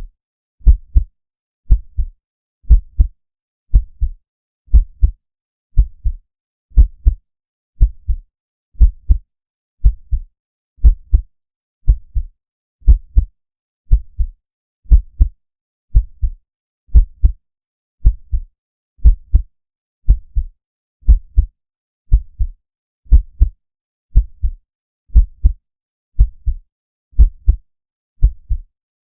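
Slow heartbeat sound effect: deep, bass-heavy lub-dub thumps in pairs, repeating in a steady rhythm about once a second.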